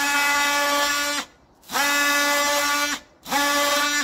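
Cordless DeWalt oscillating multi-tool cutting out a section of polystyrene wall insulation: a steady high buzz in three runs with short pauses between, each rising in pitch briefly as the tool gets up to speed.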